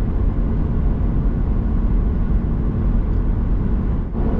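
Ford Super Duty pickup driving on the highway: steady engine and road rumble, strongest in the low end, briefly dropping away about four seconds in.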